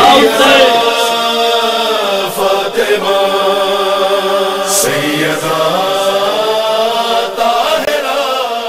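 Male voices chanting together on long, held notes, closing an Urdu noha (lament) recitation.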